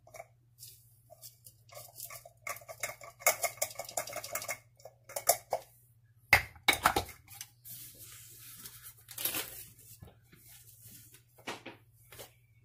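Clinks, taps and rattles of a food chopper's bowl and lid being handled and chopped nuts being tipped out onto a glass plate, with a sharp knock about six seconds in.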